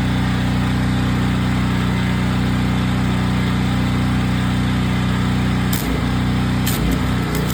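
Gas engine of an engine-driven welder running steadily. Near the end a welding arc is struck a few times in short crackles, and the engine note wavers as it takes the load.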